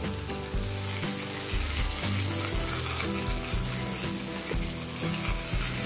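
Vrat appe batter sizzling steadily in a hot appe pan over a low flame, with soft background music.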